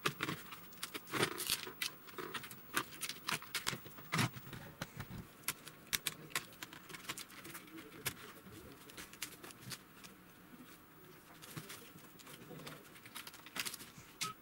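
Irregular clicks, taps and rustles of hands handling a TV's insides: a plastic speaker box lifted off the metal chassis and flat ribbon cables being moved. The noises are busiest in the first half and thin out later.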